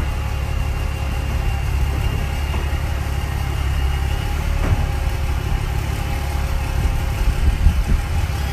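Truck engine idling steadily: a constant low rumble with faint steady tones over it.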